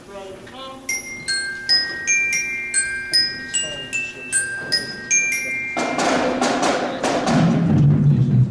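A percussion ensemble opening its show: high, bell-like mallet-percussion notes struck one at a time, about two a second, each left ringing. Near the end a bright cymbal-like swell comes in, then a low drum rumble builds underneath as it grows louder.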